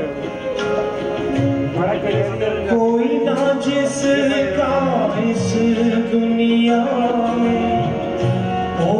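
Instrumental interlude of a live Hindi devotional song: a bamboo flute carries the melody over tabla and acoustic guitar accompaniment.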